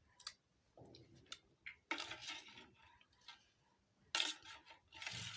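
Light clicks and clinks of small hard objects being handled, with short rustling or scraping noises in between.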